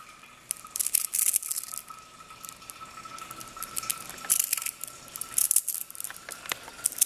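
Small neodymium magnet balls (Nanodots) being squeezed and reshaped in the hand, giving clusters of quick, sharp clicks and crackles as the balls snap together and slide over one another.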